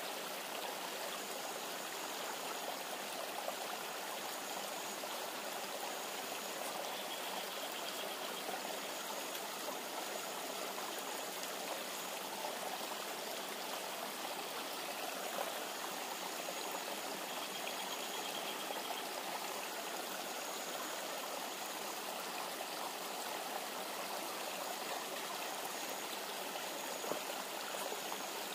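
Steady rushing of a river flowing over stones.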